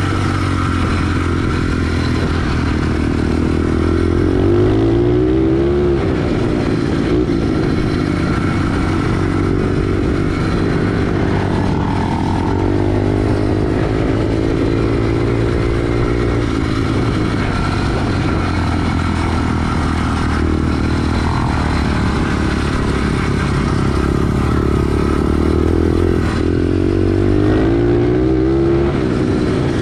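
SSR 110 pit bike's single-cylinder four-stroke engine running under way on a trail. It is revved up about five seconds in and again near the end, and otherwise holds a fairly steady pitch.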